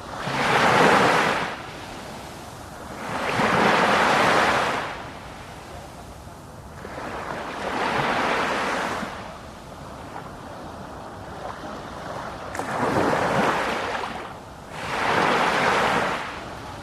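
Sea waves breaking and washing in: five surges of surf, each swelling and fading over a second or two, a few seconds apart.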